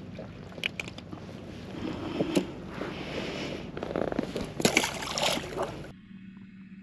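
Knocks, clicks and water splashing around a fishing kayak, busiest from about two seconds in. About six seconds in the sound cuts off abruptly to a quiet steady hum.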